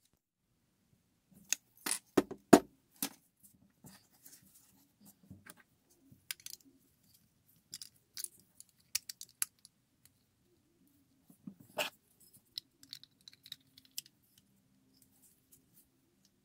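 Small toy parts clicking and clacking as they are handled and pressed together: the clear window piece and grille being fitted into a toy truck's painted cab. The sharpest clacks come in a cluster about two seconds in, with another about twelve seconds in.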